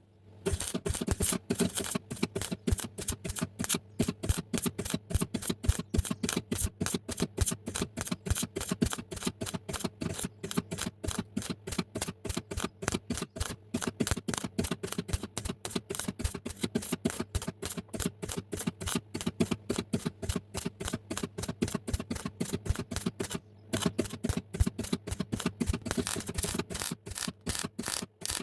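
Rapid back-and-forth hand rubbing strokes, about four or five a second, abrading the metal of an exhaust back box, with a brief pause about 23 seconds in. A steady low hum runs underneath.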